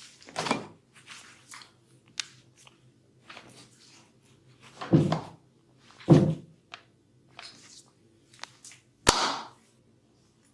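Hands working on bare skin during a massage: a run of light pats and clicks with four loud slaps, the last beginning with a sharp crack.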